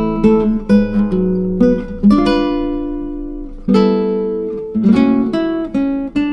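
Background music on plucked acoustic guitar: notes and chords struck and left to ring out, with a long sustained chord a little past halfway.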